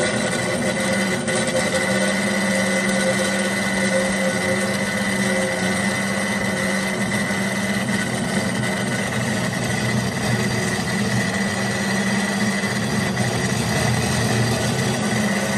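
Scotchman Bewo 13.5-inch cold saw running on high speed, its blade cutting slowly through a metal pipe under coolant. A steady motor hum with a steady high whine over it, holding even throughout.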